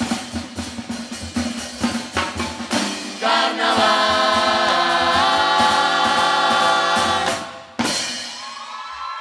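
Murga chorus singing together over a driving murga drum beat, then holding one long chord from about three seconds in. Near the end a single loud hit cuts the chord off, followed by a softer tail.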